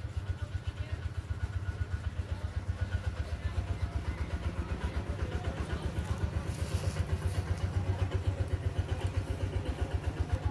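A small engine idling steadily with a rapid, even low chugging.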